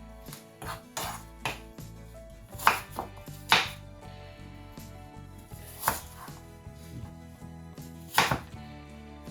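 Knife cutting a peeled apple into chunks on a cutting board: irregular knocks of the blade striking the board. The loudest come about three seconds in and near the end.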